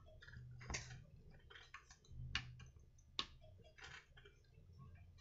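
Faint, scattered clicks and light scrapes of a screwdriver working on a chainsaw's ignition coil mounting screws: about five separate clicks, no motor running.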